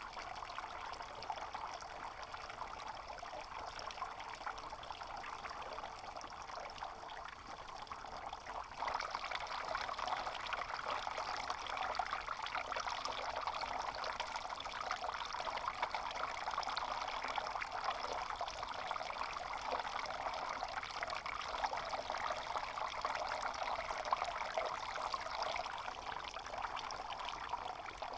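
Water pouring and trickling steadily, growing louder about nine seconds in.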